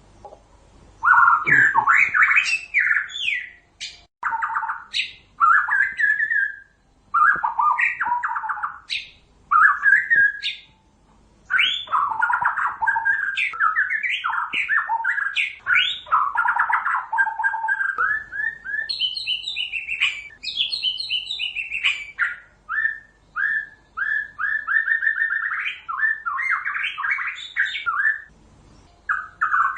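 White-rumped shama (murai batu) singing: a long run of varied phrases of quick, rich notes and rapid trills, broken by short pauses.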